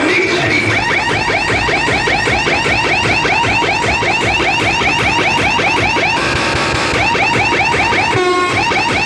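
Loud electronic siren effect played through a DJ sound system: a fast, evenly repeating rising whoop, several sweeps a second. A buzzy steady tone breaks in about six seconds in, and a short steady horn-like blast comes near the end.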